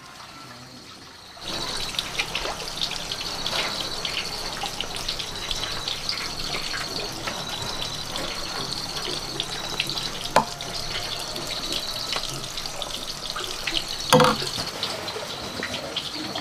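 A steady rushing like running water, with a high thin tone that cuts in and out about every second. Over it come small clicks of a spoon packing meat filling into a green bell pepper, and a louder knock near the end as the stuffed pepper is set into an aluminium pot.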